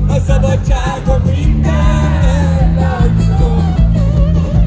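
A live band playing loud amplified rock music with a lead vocal and a heavy, driving bass line, heard from the audience through the PA.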